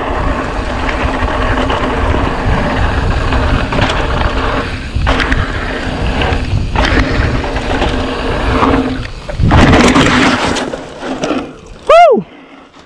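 Wind buffeting the microphone and knobby tyres rumbling over a loose dirt trail as a mountain bike descends fast, with a louder rush of noise about ten seconds in. A rider's short yell near the end.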